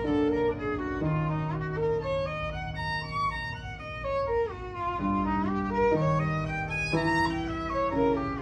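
Violin playing a slow melody of held notes that step up and down, with lower sustained notes sounding beneath it.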